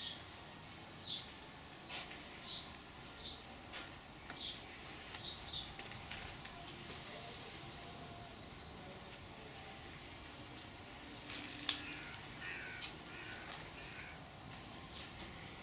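Birds calling: a run of short, high calls about one or two a second, thinning out after the middle, with a few sharp clicks, the loudest about two-thirds of the way in.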